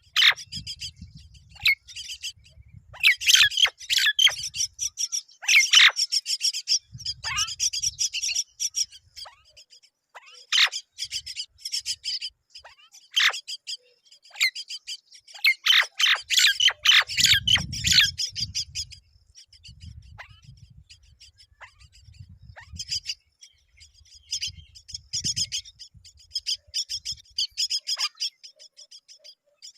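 Myna birds calling around the nest while the chicks are fed: repeated bursts of rapid, high chirps mixed with harsh squawks, coming in clusters with short pauses between them.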